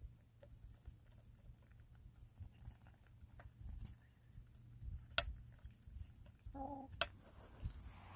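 Hens pecking wet mash from a stainless steel bowl: scattered soft pecking ticks, with two sharp clicks of beaks striking the bowl about five and seven seconds in. A short, low hen cluck comes just before the second click.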